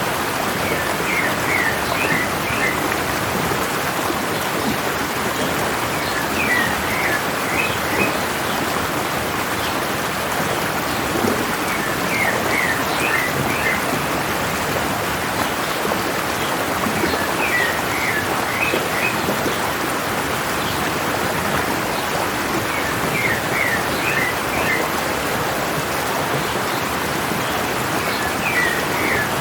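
Mountain stream running steadily, with a short bird song phrase of several quick notes repeating about every five and a half seconds.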